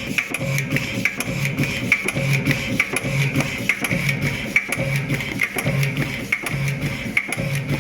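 Background music with a steady percussive beat and sharp woodblock-like ticks.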